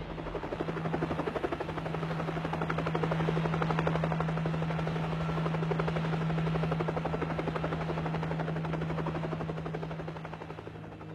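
Helicopter in flight: fast, even rotor-blade chop over a steady engine drone, fading a little near the end.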